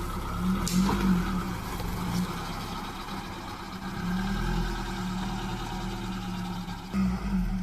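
Suzuki Samurai 4x4 engine running at low speed as it drives off-road, its pitch wavering up and down, with a few short knocks and rattles near the start and again near the end.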